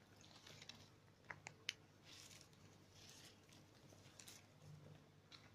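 A cat eating dry kibble from a plastic bag: faint crunching and rustling of the bag, with three sharp crunches about a second and a half in.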